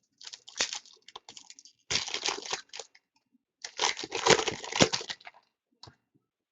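Hockey trading-card pack wrappers crinkling and tearing as packs are opened and cards handled, in three bouts of rustling.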